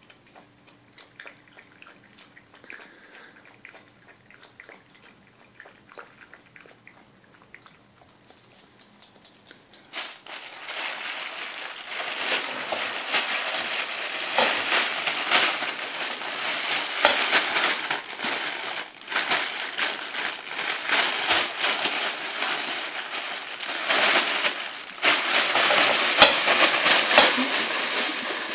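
Crinkly fabric cat tunnel rustling and crackling loudly as a puppy scrambles about inside it, starting suddenly about a third of the way in and growing louder near the end. Before that there are only faint small sounds.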